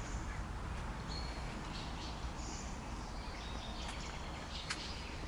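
Steady outdoor background noise with a few faint, short bird chirps and a couple of faint clicks near the end.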